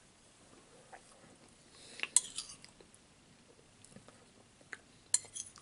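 Metal spoon clinking and scraping against a ceramic bowl of chicken and dumplings, with a cluster of sharp clinks about two seconds in and another near the end.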